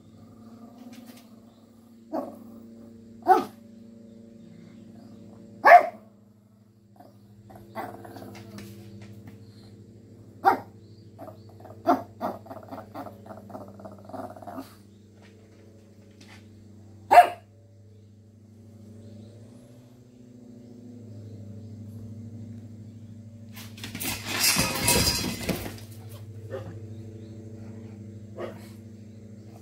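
Small shaggy dog barking at a kitten: sharp single barks a few seconds apart, with a quick string of softer yips in the middle. A rough burst of noise lasts about a second and a half near the end.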